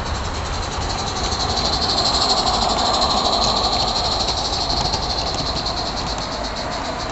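Live-steam model Beyer Peacock tank locomotive 'Mannin' running past with a fast, even chuff and a hiss of steam, growing louder about two seconds in and easing off as it goes by.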